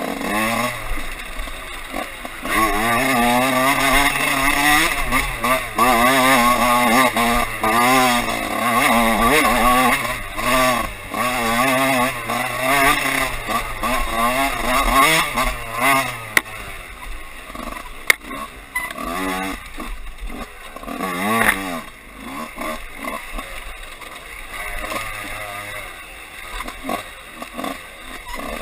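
Dirt bike engine being ridden hard, its pitch repeatedly climbing and dropping as the throttle is worked. Loudest through the first half, then easing off, with one sharp rev about three-quarters of the way in.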